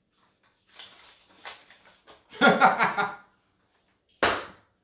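A man laughing in a few short, loud bursts, after a soft rustling. A single sharp knock comes near the end.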